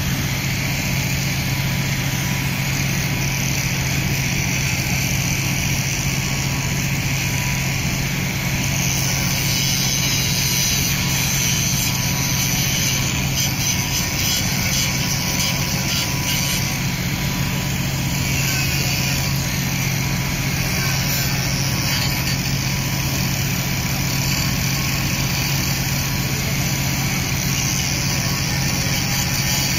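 Ferry's diesel engines running steadily at the quay, a constant low drone heard from the deck while the funnel gives off dark exhaust smoke.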